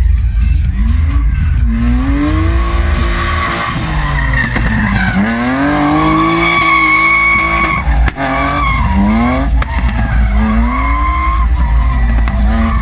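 Drift car's engine revving hard, rising and falling in pitch again and again as the car slides, with tyres skidding. About eight seconds in the engine cuts off sharply for a moment, then revs up again.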